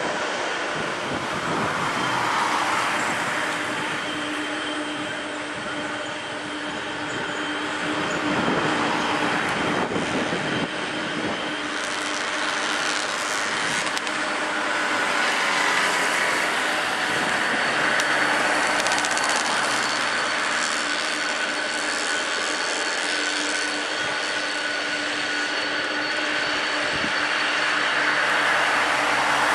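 Airbus A330-300's Rolls-Royce Trent 700 jet engines as the airliner touches down and rolls out: a steady roar with a held whine through it, swelling and easing a few times.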